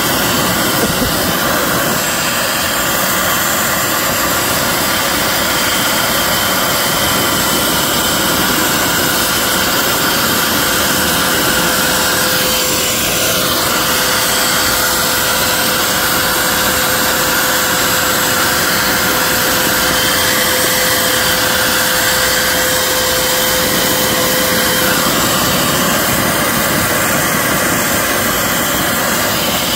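Vacuum cleaner running steadily, its nozzle sucking gunk out of the rain-well drain hole in a car body, with a loud rush of air. A thin steady whine in it stops about 25 seconds in.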